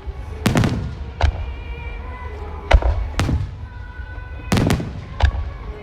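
Aerial firework shells bursting in a quick irregular series of about eight sharp bangs, part of a music starmine rapid-fire display, with the accompanying music playing over loudspeakers underneath.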